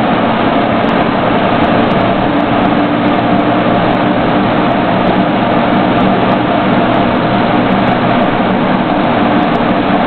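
Steady engine drone and road noise heard from inside the cab of a military vehicle driving at an even speed.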